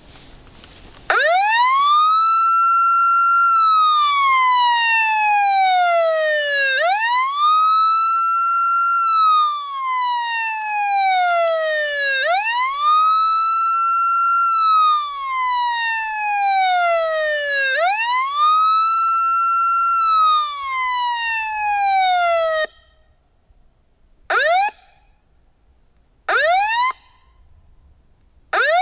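FoxPro Fusion electronic caller playing a recorded coyote howl as a locator call: four long howls, each rising sharply, holding, then sliding slowly down, about every five and a half seconds. They cut off abruptly and are followed by a few short rising yips.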